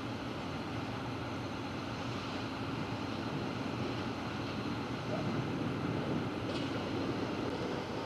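Steady low rumble of heavy machinery with a faint continuous hum, swelling slightly a little past the middle.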